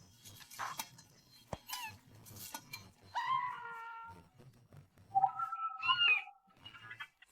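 Two pitched animal calls: a cry about three seconds in, then a longer one about five seconds in that wavers and rises in pitch, after a few faint clicks.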